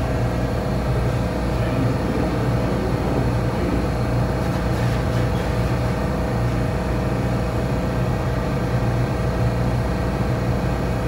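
New York City subway train giving off a steady hum and rumble, with a constant low drone and a fainter steady mid-pitched tone, unchanged throughout.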